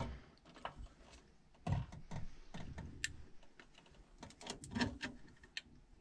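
Faint, irregular clicks and small rattles of wiring being handled: a high-voltage lead with its crimped terminal being moved from the old control transformer's 208 V tap onto the new transformer. There is a quick run of clicks about four and a half seconds in.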